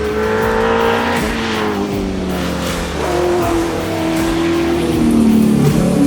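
Holden Commodore rally car's engine running hard on a stage, its pitch gliding and shifting several times as it changes speed and gears.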